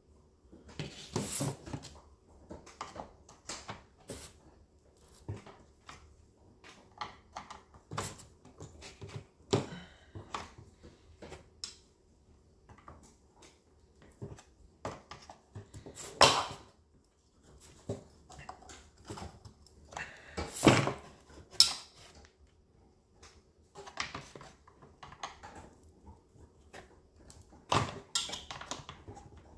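Irregular clicks, knocks and rattles of a screwdriver and hands working the plastic housing and handle parts of a Stihl MS-250 chainsaw being taken apart, with a few louder knocks about 16 and 21 seconds in.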